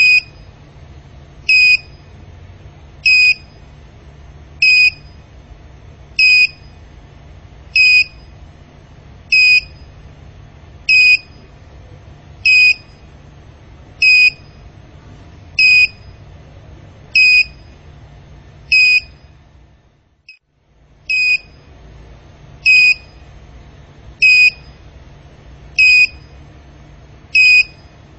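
Piezo buzzer of a low-voltage alarm module beeping, short high-pitched beeps at an even pace of about one every second and a half, with a brief break about two-thirds of the way in. The beeping signals that the supply voltage has dropped to the alarm's threshold of about 10.1 V.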